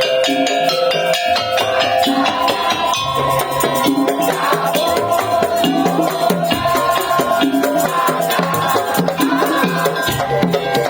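Madurese tong-tong music: an ensemble of wooden slit drums and drums playing a fast, dense rhythm, with a sustained melody line over the percussion.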